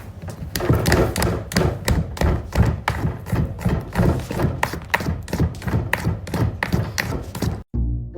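A rapid run of thumps and taps, about three or four a second, that cuts off suddenly near the end.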